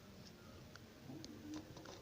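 Near silence: room tone with a few faint, soft clicks.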